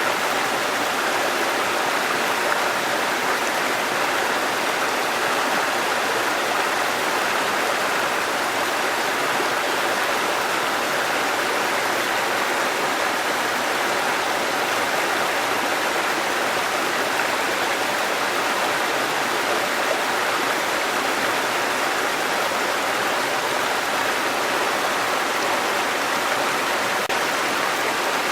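Waterfall water rushing steadily, an even hiss with no breaks or changes.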